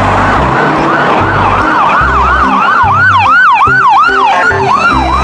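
Ambulance siren in a quick repeating up-and-down wail, about three sweeps a second, over a low pulsing beat. A second, higher siren sweeps alongside it briefly about three seconds in.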